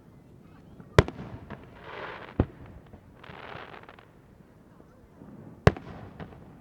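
Aerial firework shells bursting over the lake: sharp booms about a second in, again near two and a half seconds and near the end, the first the loudest, with a softer hiss between the booms.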